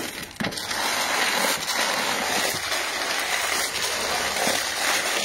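In-shell hazelnuts, gravel and stones rattling as gloved hands stir them together in a plastic crate: a dense, steady rattle starting about half a second in.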